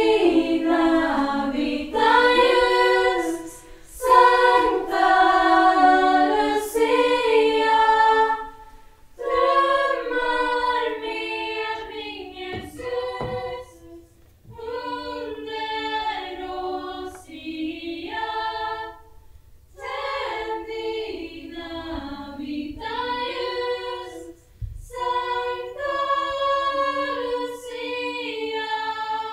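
Lucia choir singing a cappella, in phrases of a few seconds with short breaks between. The singing stops at the very end.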